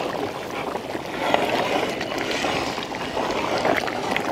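A large pot of thick tuna curry simmering: a steady bubbling hiss with scattered small pops.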